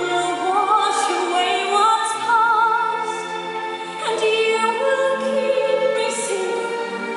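A woman singing a slow musical-theatre ballad with wide vibrato over sustained instrumental accompaniment.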